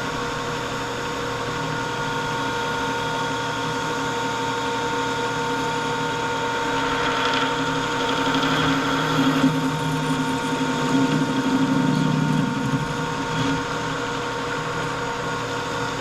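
Metal lathe running with a steady gear whine while facing the end of a steel bar; the cutting noise grows louder about halfway through and eases off a few seconds before the end.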